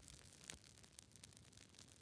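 Fireplace fire crackling faintly, with scattered small pops and a slightly louder pop about half a second in, over a soft hiss.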